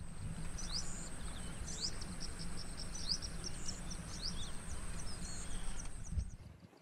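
Outdoor nature ambience: small birds giving quick rising chirps, several in a row, over a steady high-pitched insect drone and a low background rumble. The drone and chirps stop near the end.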